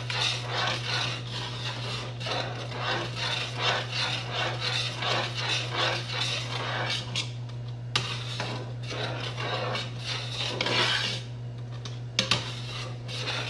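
A spoon stirring and scraping round the inside of a metal stockpot, in quick repeated strokes against the bottom and sides, as a thickening cornstarch-and-coconut-milk pudding (maja blanca) is stirred on the heat. The strokes ease off briefly about seven and eleven seconds in.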